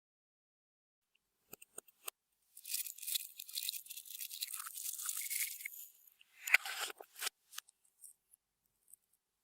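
Slime being handled by hand: a few soft clicks, then about three seconds of crackly, hissing squishing, then a swell and a few sharp pops near the end.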